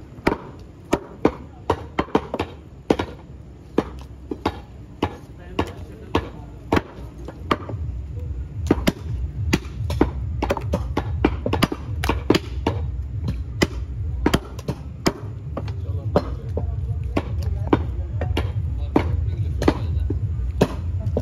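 Heavy butcher's knives chopping raw beef on wooden chopping blocks: sharp chops, about two a second, each blade striking through the meat into the wood. A low background rumble comes up about eight seconds in.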